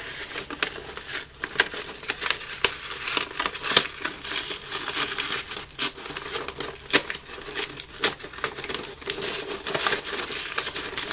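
Paper wrapping crinkling and rustling as it is handled and unwrapped, with many sharp crackles throughout.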